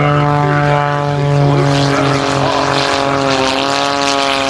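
Aerobatic propeller airplane flying by with its engine and propeller running at high power in a steady drone; the pitch sags slightly about two seconds in.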